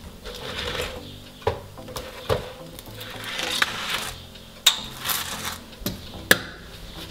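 Kitchen tongs clicking and tapping, about half a dozen sharp clicks, with soft scrapes and rustles as grilled lavash triangles are lifted off an electric contact grill and laid on a wooden board. Quiet background music underneath.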